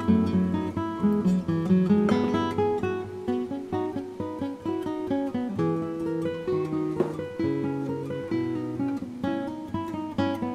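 Background music: an acoustic guitar piece of plucked and strummed notes.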